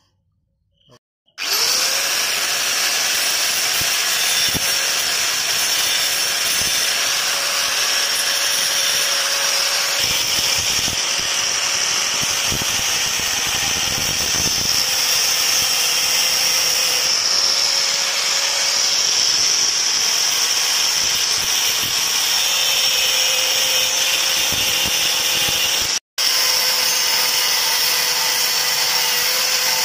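Angle grinder with a cutting disc running and cutting into the steel exhaust silencer of a Royal Enfield Bullet: a loud, steady grinding whine that starts about a second and a half in. It breaks off for a moment near the end and resumes.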